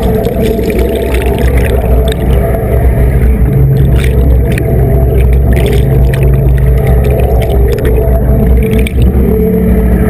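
Twin Yanmar boat drives with their propellers turning, heard underwater: a loud steady drone of engine and propeller noise over the hiss and crackle of churning bubbles. A low hum swells briefly around the middle.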